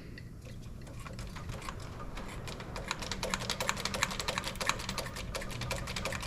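Rapid, irregular light clicking and crackling from the loader joystick's control cables just after spray lube was blasted into them. The clicks grow denser a couple of seconds in and are heard as lube working its way down the cables.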